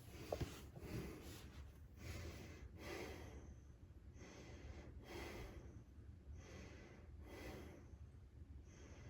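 A person breathing audibly, close to the microphone, in soft regular breaths about once a second, with one small click just after the start.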